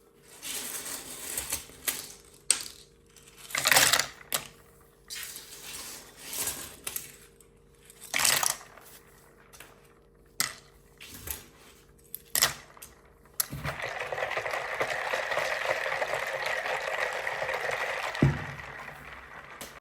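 Plastic keyboard keys and keycaps being handled, with a string of sharp clicks and clatters. About two-thirds of the way through this gives way to a steady rushing hiss, with one thud near the end.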